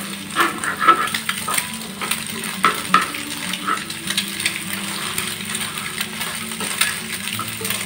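Eggs sizzling in a frying pan as a metal spatula stirs and scrapes them, with irregular clicks and clinks of the spatula against the pan.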